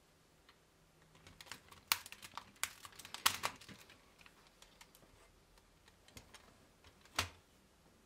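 Lego Technic plastic parts clicking and snapping as they are handled and pressed together by hand: a quick run of small clicks in the first half, then one sharper click near the end.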